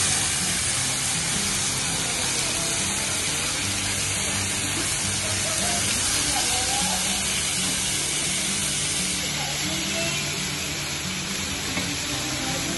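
Marinated mutton sizzling in oil on a hot flat-top griddle, a steady hiss. Background music with a stepping bass line plays underneath.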